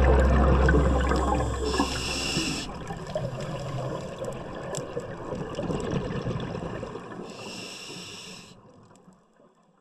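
Underwater scuba breathing through a regulator: a gurgle of exhaled bubbles with two hissing breaths, each about a second long, about two seconds in and again near the end. The sound then fades out.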